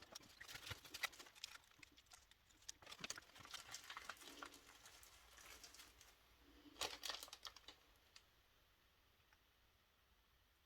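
Faint scattered clicks and soft rustles of small tools and plastic being handled on a worktable, busiest in the middle and dying away near the end.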